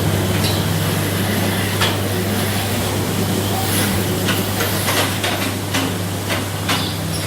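Rotary milking parlour machinery running: a steady low hum with an even hiss, broken by a few sharp clanks and clicks, most of them between about four and seven seconds in.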